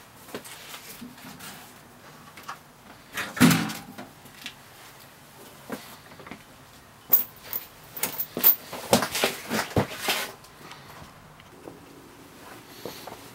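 Knocks and clatters of cables and a power plug being handled, with one louder knock about three and a half seconds in and a run of quick clicks and knocks from about seven to ten seconds in.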